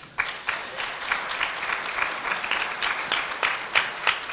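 Audience applauding, beginning just after the start, with many sharp individual claps standing out from the steady clatter.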